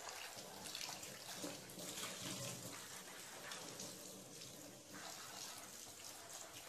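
Faint tap water running onto a terracotta clay pot in a stainless-steel sink while the pot is scrubbed by hand with a sponge scrubber. This is the scrub-and-rinse step in seasoning a new clay pot.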